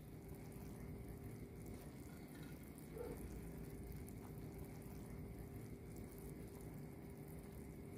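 Spiced sugar syrup boiling in a pot with koeksisters in it: a faint, steady bubbling.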